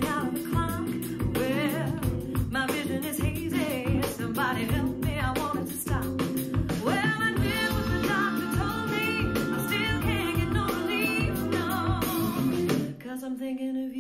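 A song with singing and a steady beat playing from an Apple HomePod smart speaker, heard in the room. Near the end the bass and beat drop away and the music thins.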